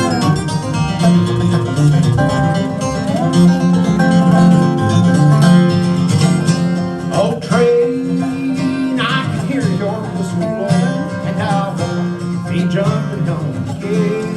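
Acoustic guitar and dobro playing a bluegrass instrumental introduction, with the dobro sliding between some notes.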